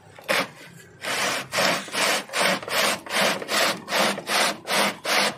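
Galvanized metal drum being twisted back and forth in a wooden tub of salted ice chunks, grinding against the ice in rhythmic scraping strokes about two and a half a second. It is being churned so that the sugar-and-water mix inside freezes.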